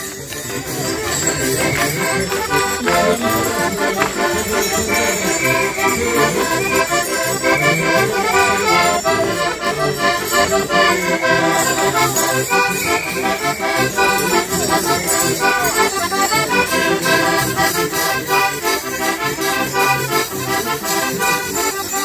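Accordion playing a fast traditional folk tune, with steady jingling and rattling over it.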